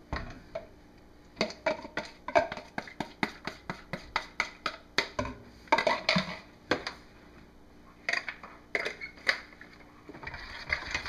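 Irregular clinks, taps and scrapes of utensils against plastic jugs and a stainless steel pot as raw cold-process soap batter is scraped out and stirred, at times several knocks a second.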